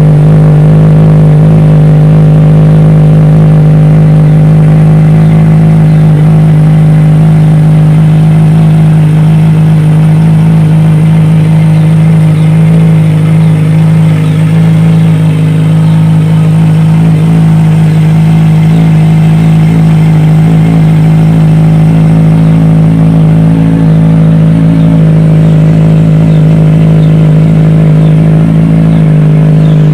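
Kawasaki Ninja 1000SX's inline-four engine idling steadily on a cold start, heard through a newly fitted Yoshimura R77 slip-on muffler. It is a loud, even exhaust drone with no revving.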